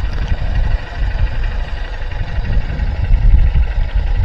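Motorbike being ridden along a road: uneven wind rumble on the microphone with the engine running steadily underneath.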